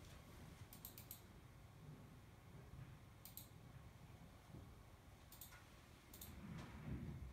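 Near silence: room tone with a few faint, sharp clicks, several coming in quick pairs, and a faint low rumble near the end.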